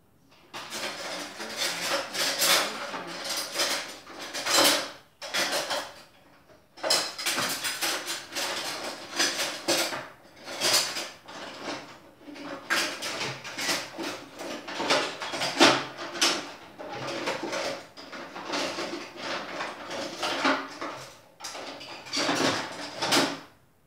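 A kitchen utensil scraping and clinking against a bowl over and over in quick, uneven strokes, as in mixing, with short pauses about five and seven seconds in and just before the end.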